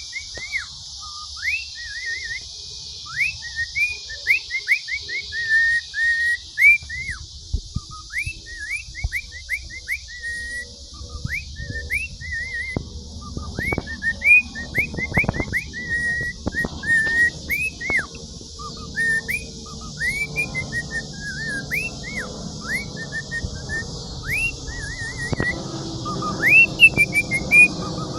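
Caged pet bird whistling a long run of short, clear notes, many sliding sharply up or down, in quick phrases with brief pauses. A steady hiss lies underneath, and a few low knocks come near the middle.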